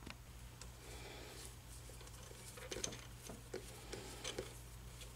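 Faint, scattered clicks and light metallic knocks of parts and hand tools being handled at a metal lathe, over a low steady hum; the clicks come thickest from about halfway in.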